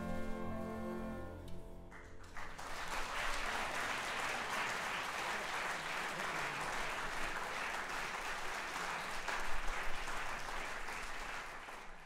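The final held chord of a chamber orchestra with jazz piano trio dies away, and about two seconds in the audience breaks into steady applause.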